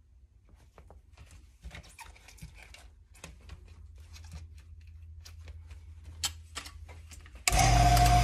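A sheet of kydex plastic rustles and flexes as gloved hands lay it flat, and an aluminium clamping frame is set over it with light clicks and knocks. Near the end a loud, steady motor switches on abruptly and runs with a constant hum.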